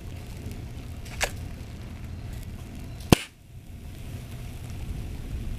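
Punctured, puffed LiPo battery packs burning and smoking: a steady rushing noise, with a sharp pop about a second in and a much louder crack a little after three seconds.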